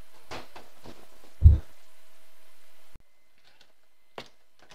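Handheld camera handling noise: faint rustling and small ticks, with one loud, dull thump about one and a half seconds in. After an abrupt cut, a single sharp tap at an apartment door near the end.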